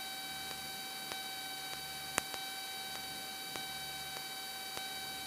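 Steady electrical hiss and hum from a Cessna 172's intercom audio feed, with several fixed whining tones and only a faint low rumble of the engine. Faint ticks repeat a little under twice a second, and one sharper click comes about two seconds in.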